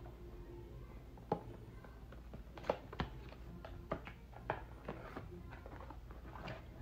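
Product packaging being handled: a scattered series of sharp taps and clicks, about eight in all, the loudest nearly three seconds in.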